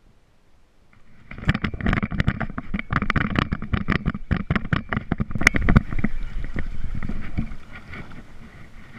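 Rapid, irregular splashing and knocking against a plastic paddleboard while a hooked bass is fought to the board. It starts suddenly about a second in and eases off near the end.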